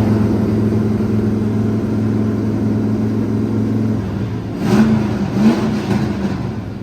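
Race car engine sound, a steady low drone, with two short revs that rise in pitch about five seconds in.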